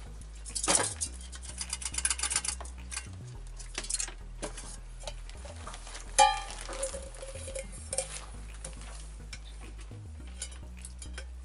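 Metal rice cooker parts being handled: a run of light clicks and scraping, then one loud metallic clank about six seconds in that rings briefly, followed by a few small clicks.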